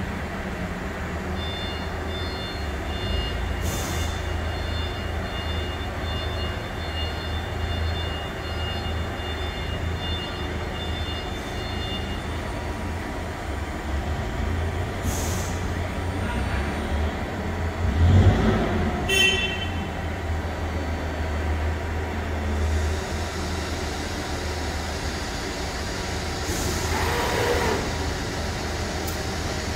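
A 2020 Ermak EVO III 150-ton hybrid press brake running with a steady low hum. A faint high whine comes and goes over the first twelve seconds, and about eighteen seconds in there is a heavier thump followed by a few quick clicks.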